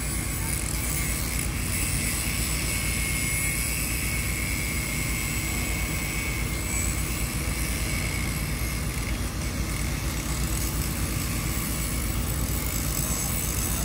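Diesel engine of a truck-mounted mobile crane running steadily, a constant low engine drone that does not rise or fall.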